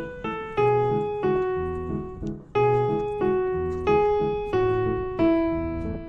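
Background piano music: a gentle melody of struck notes over bass notes, in a steady rhythm of about one to two notes a second.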